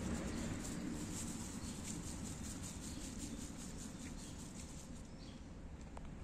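A cat lapping water from a plastic cup, a quick even run of about four to five wet laps a second that stops about five seconds in when she lifts her head.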